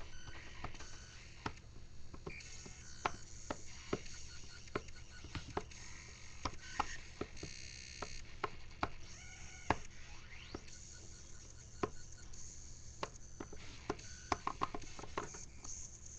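Fingers tapping the buttons of a grid pad MIDI controller: a run of irregular soft clicks and knocks, with some strikes louder than others.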